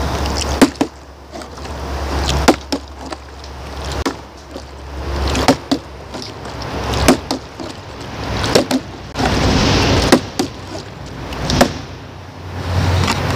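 Repeated sharp knocks of a partly filled plastic water bottle being flipped and landing on a wooden skateboard deck, over wind gusting on the microphone.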